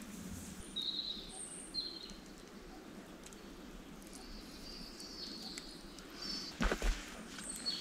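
Birds giving short, high chirps, several times, over a steady low background noise, with a brief cluster of knocks and rustles near the end.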